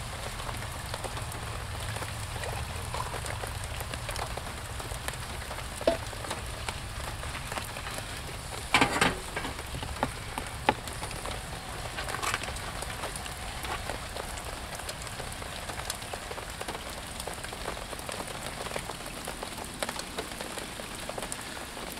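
Steady rain pattering, with a few brief knocks and clatters now and then, the loudest about nine seconds in.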